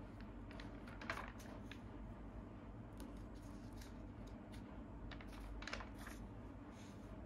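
Pages of a paper comic magazine turned by hand: soft paper rustling and crinkling, with the louder rustles about a second in and again around five to six seconds as each page flips over.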